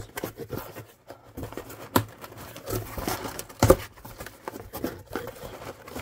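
Cardboard shipping box being pulled open by hand: the flaps are worked loose along a slit packing-tape seam, with cardboard scraping and rustling and a run of sharp knocks, the loudest about two seconds and three and a half seconds in.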